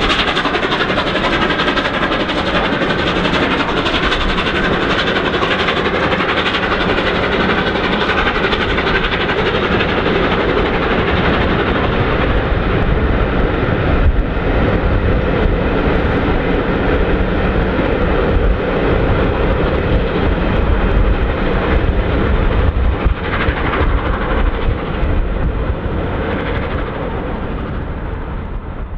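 Steam locomotive 60163 Tornado, a three-cylinder LNER Peppercorn A1 pacific, pulling away under load and passing, followed by its train of coaches rolling by on the rails. The sound stays loud and steady and falls away a little near the end as the train draws off.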